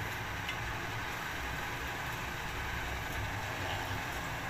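Gas stove burner running steadily under a wok, a low even rumble with a hiss.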